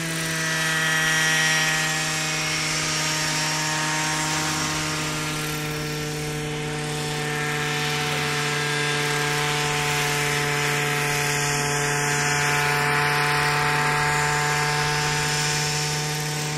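Radio-controlled scale model Bell 47 helicopter hovering low, its engine and rotors giving a steady drone that holds nearly the same pitch throughout.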